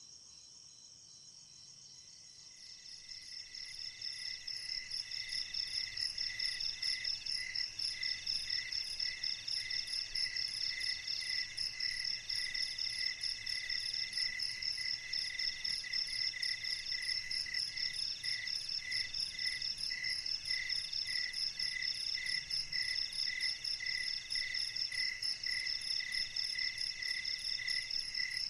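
A night chorus of crickets and other insects, several trills and chirps layered over one another. It swells to full strength a few seconds in, then holds steady, one layer pulsing about twice a second.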